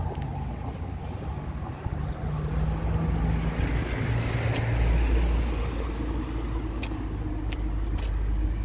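A car passing on the street, its engine and tyre noise swelling to a peak about halfway through and then fading, over a low rumble of wind on the microphone.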